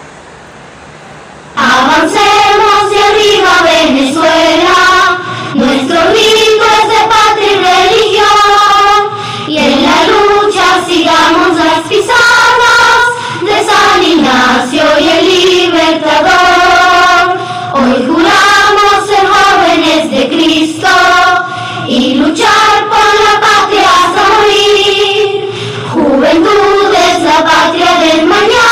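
A choir singing a school hymn, coming in about a second and a half in after a faint hiss.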